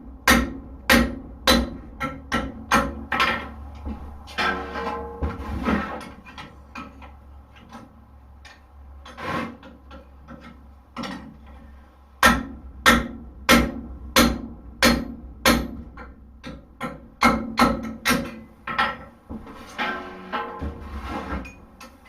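Hand hammer striking hot horseshoe steel on an anvil, about two blows a second in runs with short pauses between, each blow ringing.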